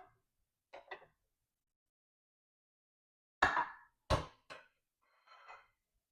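Kitchen clatter of dishes or utensils being handled: two light clicks, then three sharp knocks in quick succession, followed by a brief rustling scrape.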